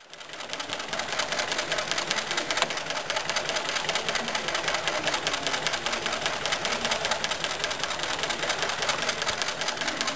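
Buraschi RP5BR industrial net sewing machine starting up and running at speed, stitching a rope onto the edge of a net with a fast, even mechanical clatter. It comes up to speed within about the first second.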